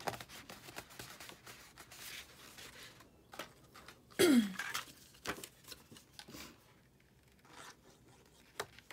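Sheets of 67 lb Neenah cardstock rustling and rubbing as paper rose petals are handled, shaped and slid off a stack, with one loud scrape that drops in pitch about four seconds in.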